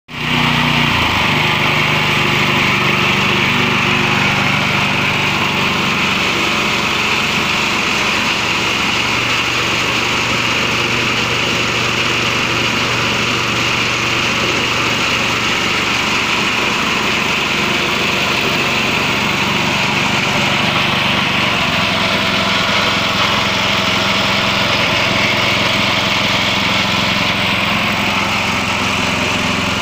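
GX200 single-cylinder four-stroke petrol engine running steadily, driving a K-15 wet coffee bean pulper on test. The engine note shifts slightly about a second in and again around two-thirds of the way through.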